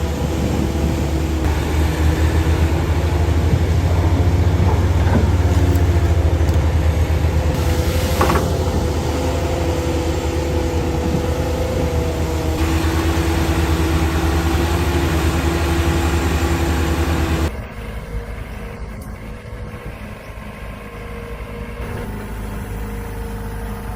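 Heavy machinery engine running steadily: a strong low hum with a few held tones above it. About 17 seconds in it cuts suddenly to a quieter engine sound.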